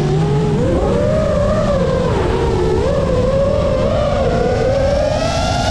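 FPV quadcopter's brushless motors whining, the pitch jumping up about half a second in, wavering up and down with the throttle, and climbing near the end, over a steady rushing noise.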